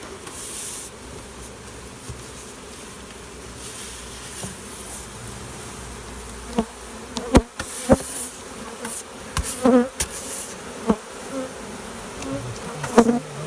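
Honeybee swarm buzzing steadily as the bees are brushed and shaken into a box. Several sharp knocks and short scraping or rustling bursts come between about six and eleven seconds in.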